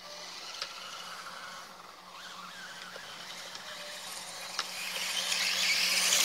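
Electric RC dirt bike's motor and drivetrain whining as it runs across grass, faint at first and growing louder over the last second or so as the bike comes close. A few small clicks are heard along the way.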